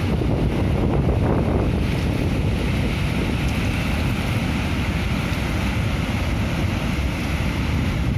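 Kuntala Waterfall's falling water, a steady, unbroken rush.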